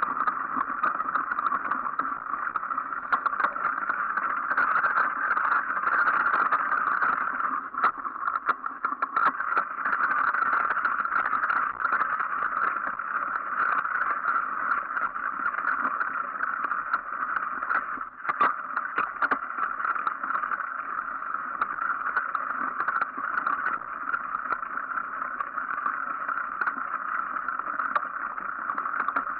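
Mountain bike riding over a snow- and leaf-covered trail: a steady rushing noise of the ride, with scattered short clicks and knocks as the bike rattles over bumps.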